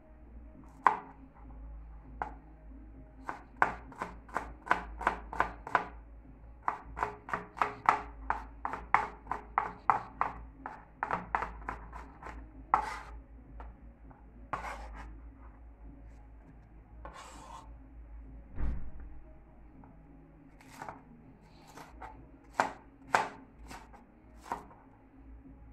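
Chef's knife chopping scallion and garlic on a plastic cutting board. The first half has runs of quick, even strokes at about four a second; after that come slower, scattered single cuts through sweet pepper.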